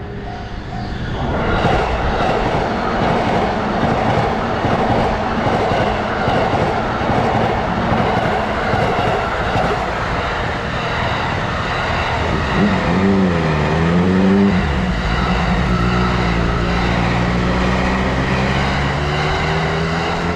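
Electric train passing over a level crossing: the rumble builds about a second in and stays loud. A wavering tone comes about two-thirds through, and a tone rises in pitch near the end.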